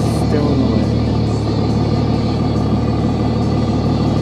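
Vehicle engine and cab noise heard from inside the vehicle as it moves slowly: a steady low drone.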